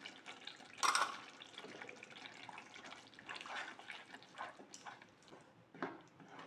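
Wooden spatula stirring runny chili sambal in a nonstick frying pan: wet sloshing and scraping against the pan, with a sharp knock about a second in.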